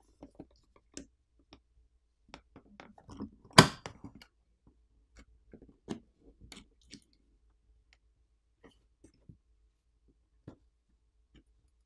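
Irregular small clicks, taps and crunchy scrapes of plastic pry picks working along the edge of an iPhone 15 Pro's heated back glass to break its adhesive, with one sharp, louder click about three and a half seconds in. The clicks come more sparsely toward the end.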